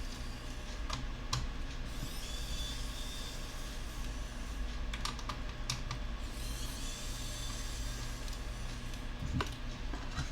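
Scattered light clicks and taps of small screws and plastic parts of a laptop case being handled during disassembly, over a steady low hum.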